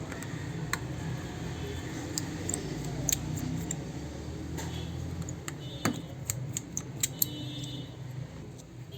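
Scattered small clicks and taps of a small screwdriver and screws against a Samsung J2 Pro's housing as its screws are undone, over a steady low background hum.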